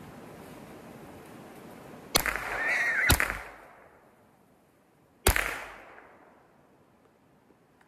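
Three sharp .22 magnum rifle shots, about two, three and five seconds in, the last trailing off in an echo. Between the first two, a shot wild hog squeals and thrashes for about a second.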